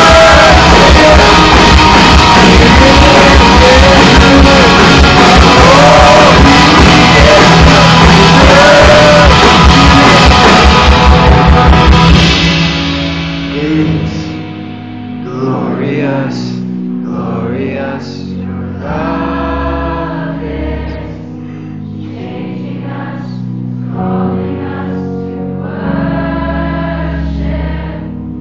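Live band playing loud rock music with singing and a steady drum beat, which ends about twelve seconds in. A softer passage of held chords with singing follows.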